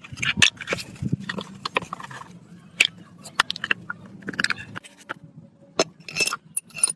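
Irregular clicks, taps and short scrapes of hand work on metal parts, over a low steady hum that stops about five seconds in.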